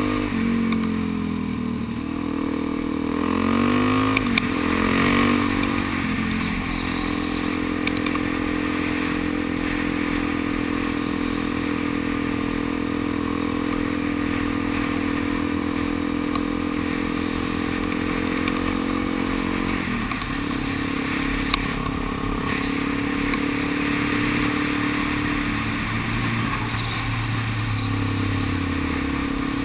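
Motorcycle engine heard from the rider's seat, revving up and dropping back through gear changes in the first few seconds, then holding a steady cruising note. The engine eases off briefly about two-thirds of the way through, with a steady rush of wind throughout.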